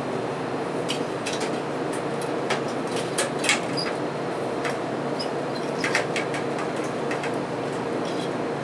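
Scattered light clicks and taps of a fluorescent tube's end pins being worked into the fixture's tombstone lamp holders and twisted to lock, over a steady background hum.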